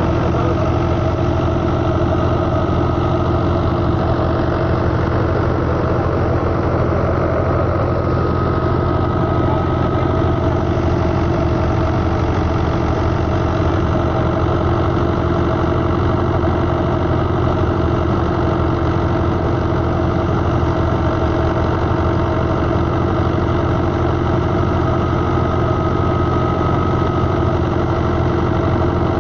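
Fiat 640 tractor's diesel engine running steadily under load, driving a Mughal wheat thresher, with the thresher turning as wheat is fed in. The sound stays even and continuous throughout.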